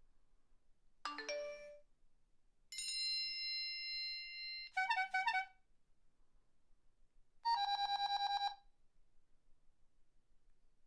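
A series of short electronic alert tones, ringtone-like: a quick chime about a second in, a held bright multi-note tone that breaks into a fast warbling ring around five seconds, then another short ringing tone near the eight-second mark.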